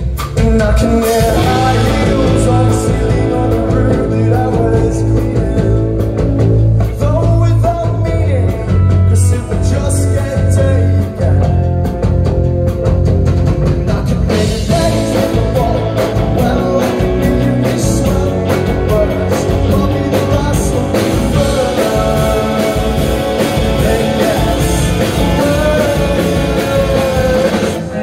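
A rock band playing live and loud: electric guitars, bass guitar and drum kit, with a singer's voice carrying the melody.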